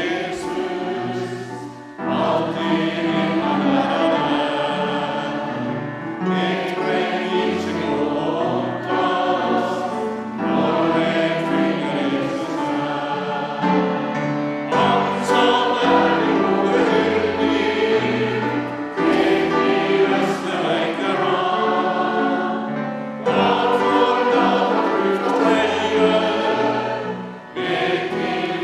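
A group of voices singing a Norwegian hymn with instrumental accompaniment, in sung phrases over a low bass line. There is a short break in the singing near the end as one verse gives way to the next.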